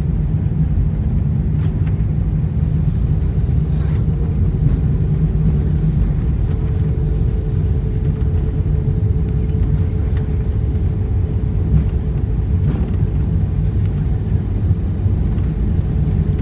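Steady low rumble inside the cabin of an Airbus A320neo rolling along the runway after touchdown, from its engines and wheels. A faint higher hum comes in about six and a half seconds in.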